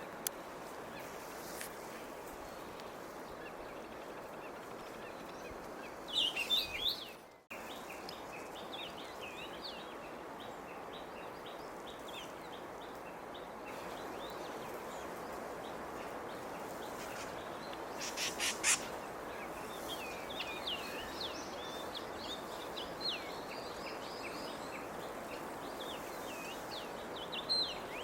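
Small songbirds calling: a busy stream of short chirps and whistled notes that starts about six seconds in and keeps going, over a steady outdoor hiss. A quick run of sharp clicks comes a little past halfway.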